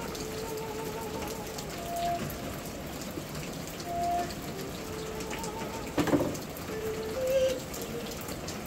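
Steady hiss of rain falling, with a faint tune of held notes from a radio behind it and a single knock about six seconds in.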